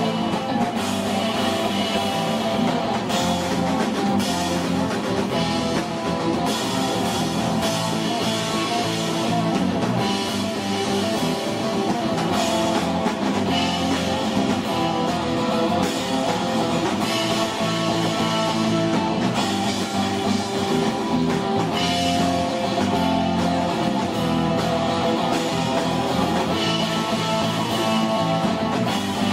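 Live rock band playing: guitar over a drum kit with cymbals.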